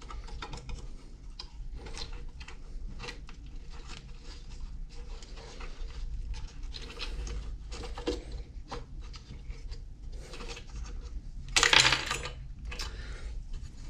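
Small plastic and metal clicks, taps and rubbing as a throttle linkage is worked into the new carburetor on a Stihl BG55 leaf blower, with one louder rasping rustle near the end.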